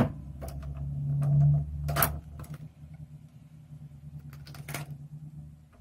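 Clicks and light knocks of the metal gasket frame and FEP film being worked loose and lifted off an aluminium resin vat, over a steady low hum.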